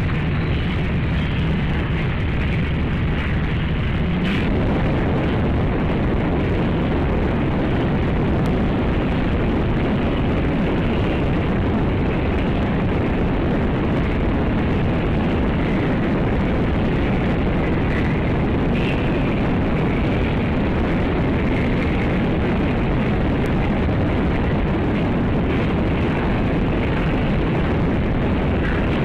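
A steady, loud rumbling noise with no distinct events.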